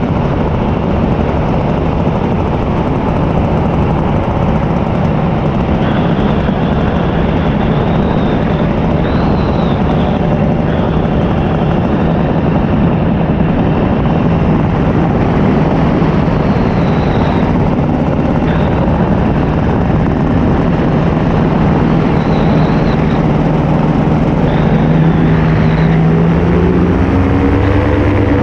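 Paramotor's two-stroke engine and propeller running steadily in flight, heard close up with rushing noise over the microphone. The engine note rises near the end as the throttle changes.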